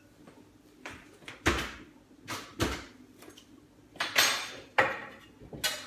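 Kitchen handling sounds: a run of separate knocks and thuds, about seven in all, some with a dull low thump, and a longer clatter about four seconds in.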